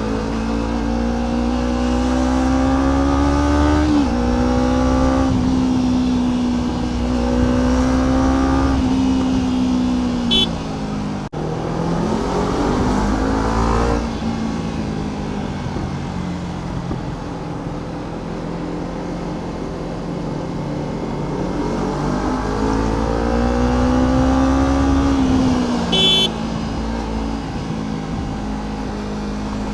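Kawasaki Ninja 300's parallel-twin engine under way. Its pitch climbs steadily through several long pulls, each broken by a quick drop, and falls back between them. Two brief high-pitched beeps come about ten seconds in and again near the end.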